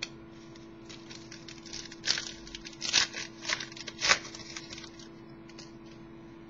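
Football trading cards being handled and slid off one another as the next card is turned up: a run of soft swishes and light clicks, the loudest about two, three and four seconds in, over a faint steady hum.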